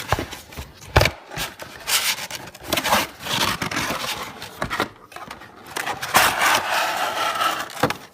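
A cardboard toy box being handled and opened as a playset is pulled out: irregular rubbing and scraping of cardboard and packaging, with a couple of sharp knocks, about a second in and near the end.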